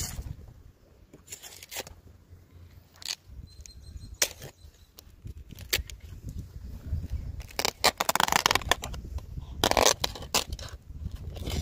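Palmyra palm flower stalks being worked by a tapper with a curved tapping knife and a wooden mallet: irregular sharp knocks and cuts, a longer rustle of dry fibre about eight seconds in, and a heavier knock near ten seconds.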